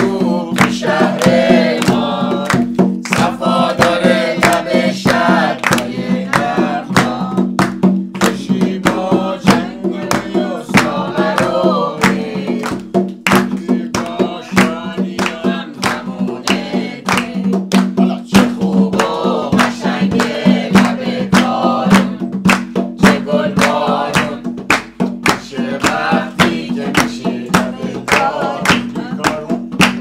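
A song with singing over a plucked string accompaniment, a steady beat and a held low tone.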